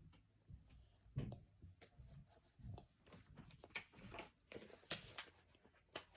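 Faint, irregular tapping and rubbing of a liquid chalk marker tip colouring on a card, with a knock about a second in.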